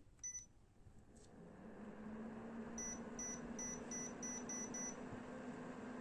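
Microhoo mini air cooler's touch panel gives one short high beep, then the cooler's fan spins up to a steady hum with air noise. A few seconds in, the panel beeps seven more times in quick succession, about three beeps a second.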